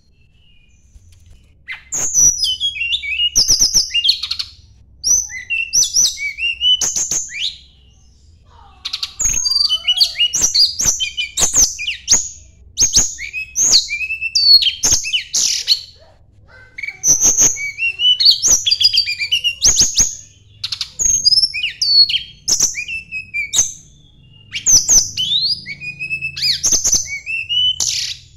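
A tledekan gunung singing in bouts of several seconds. Each bout is a fast run of high chirps, sweeping whistled notes and sharp clicks, and short pauses fall between the bouts.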